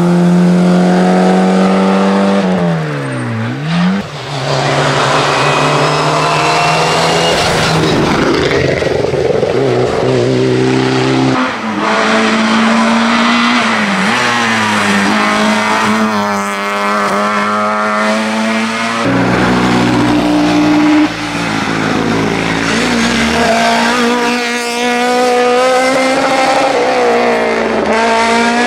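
Small Peugeot 106 rally car engines at full throttle, one car after another. Each engine note climbs with the revs and drops sharply at gear changes and lift-offs, and the sound switches abruptly several times from one car to the next.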